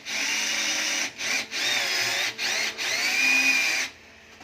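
Power drill running in about five short bursts, its pitch rising and falling, then stopping about four seconds in.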